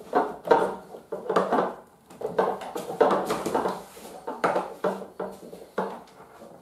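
Metal leg struts and frame of a folding camping cot knocking and clinking as they are worked out of their sockets to collapse the cot, a string of irregular clacks with a brief ring after each.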